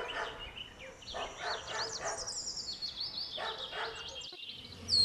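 A dog giving a few short, spaced barks, with small birds chirping and tweeting steadily in the background.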